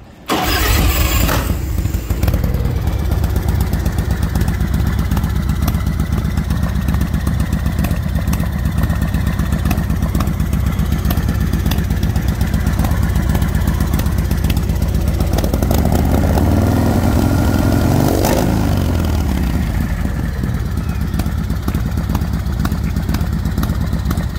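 Big Dog Mastiff motorcycle's S&S 107 cubic-inch V-twin engine starting right at the beginning, then running loud and steady at idle. Around two thirds of the way in the engine is revved up and drops back to idle.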